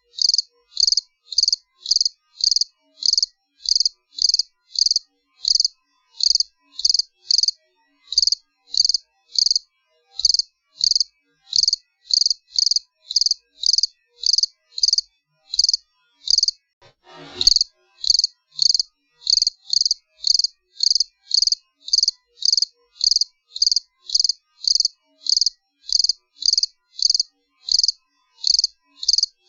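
A cricket chirping in an even rhythm, about two short, high chirps a second. There is a short pause about sixteen seconds in, followed by a brief thump.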